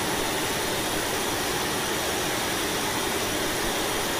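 Loud steady hiss of electronic noise from a video clip's stereo soundtrack being played back. The noise comes from a faulty right channel that records almost nothing but noise.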